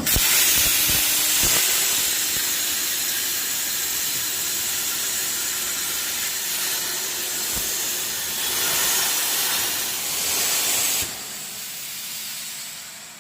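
Cutting torch on a CNC gantry cutting machine hissing steadily as it cuts. The hiss starts suddenly and cuts off abruptly about eleven seconds in, leaving a fainter hiss.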